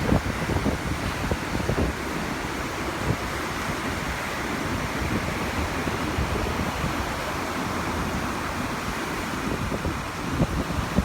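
Ocean surf washing onto a sandy beach under steady wind, with gusts buffeting the microphone in low rumbles that come and go.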